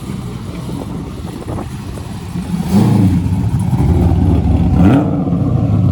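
A car engine running and revving: a low rumble that grows louder about three seconds in, with a rising rev near the end before it drops back.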